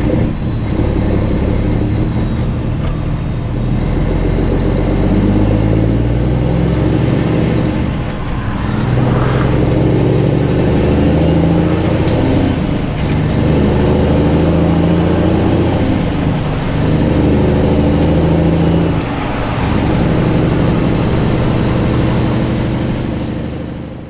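Kenworth W900's diesel engine accelerating up through the gears, heard from the cab: its pitch climbs in each gear and drops at each of four upshifts, with a high turbo whine rising and falling along with it, then settles to a steady cruise near the end.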